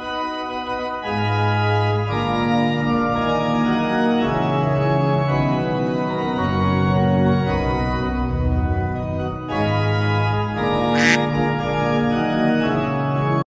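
Organ music: sustained chords held over a slowly moving bass line, cutting off abruptly at the end.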